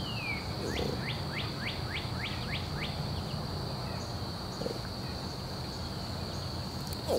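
Outdoor ambience: a steady high-pitched insect drone, and a bird calling a quick run of short falling notes about a second in, over faint low rumbling.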